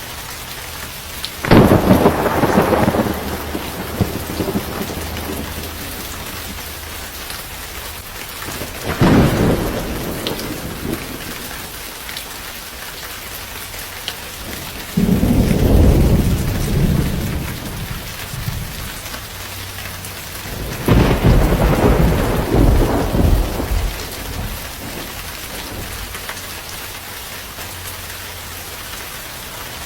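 Steady rain with four rolls of thunder spread through it, each starting abruptly and rumbling away over a few seconds.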